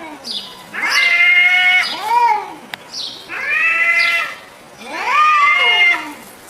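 Cat meowing repeatedly: about four drawn-out meows, each arching up and down in pitch, with a sharp click near the middle.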